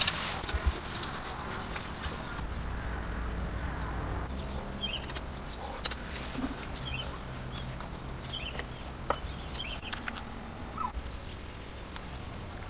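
Rural outdoor ambience: a steady high-pitched insect drone, a second drone joining near the end, with a few short chirps and scattered light clicks and rustles.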